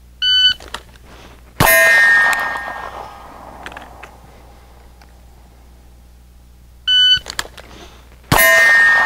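Shot-timer start beep, then a single 9mm pistol shot about a second later and the ringing of the struck steel target; the same beep-then-shot-and-ring happens again about seven seconds in.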